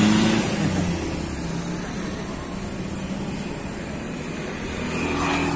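Road traffic passing close by. A small pickup truck's engine is loudest at the start and fades as it drives away, and another motor vehicle's engine grows louder near the end as it approaches.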